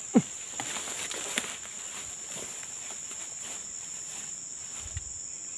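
Forest insects droning steadily at a high pitch, with a loud brief falling sound just after the start and a few light clicks.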